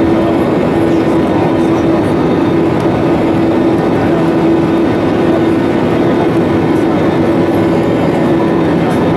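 Airbus A319 cabin noise heard over the wing in flight: a loud, steady rush of engine and airflow with a constant hum running through it.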